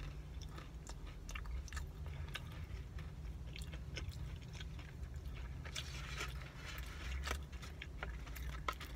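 Close-up chewing and biting of a caramel pecan cinnamon roll: irregular wet mouth clicks with small crunches, over a steady low hum.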